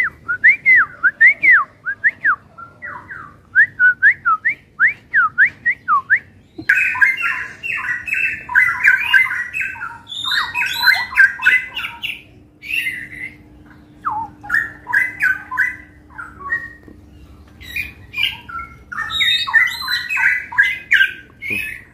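Caged straw-headed bulbuls (cucak rawa) singing loudly in full song. First comes a run of quick whistled notes sliding up and down, then about seven seconds in rich, dense warbling phrases start and come in bouts.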